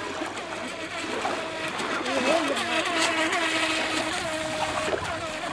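Radio-controlled FT007 racing boat's electric motor whining at speed, its pitch wavering around two seconds in, then holding steady before cutting off near the end.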